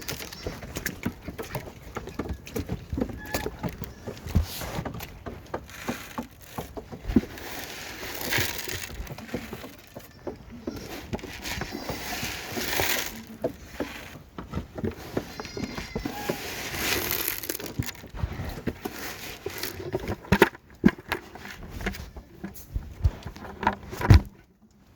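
Rustling, crackling and scattered knocks from handling and moving about in a goat pen, with goats bleating faintly a few times. A sharp knock sounds near the end.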